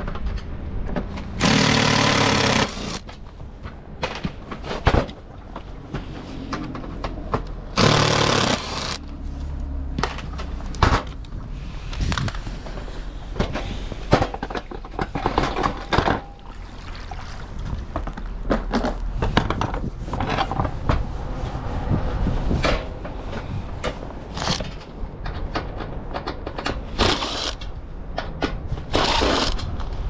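A cordless electric screwdriver runs in short bursts of about a second each, backing screws out of a washing machine's stainless steel drum. Between the bursts come knocks and scrapes of metal and plastic drum parts being handled.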